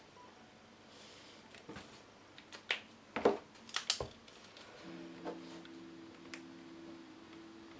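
A cluster of sharp clicks and one louder knock between about two and a half and four seconds in, from stationery being handled on the desk: a highlighter put down on the paper and a pen picked up. About five seconds in, soft lo-fi music with held chords comes in.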